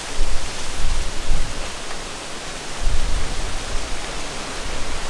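A steady rush of water poured and splashing over the wet skin of a large hanging stingray as it is washed, with a low rumble that comes and goes.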